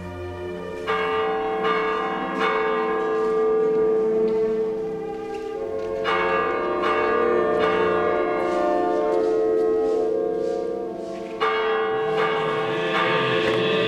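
Church bell struck in groups of about three quick strokes a few seconds apart, each stroke ringing on with a long, sustained hum.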